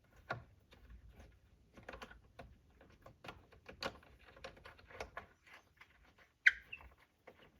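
Allen wrench turning the screws of a subwoofer enclosure by hand: irregular small clicks and scrapes of the metal key in the screw heads, with one sharper metallic clink that rings briefly about six and a half seconds in.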